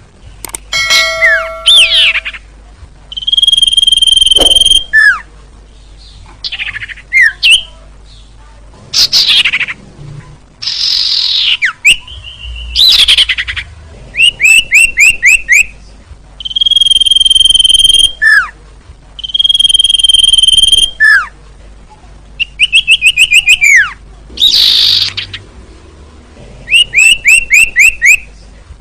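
Sirtu bird calling over and over, used as a bird-lure recording: long steady high whistles alternate with quick runs of short down-slurred notes and sharp falling notes, each phrase a second or two long with short pauses between.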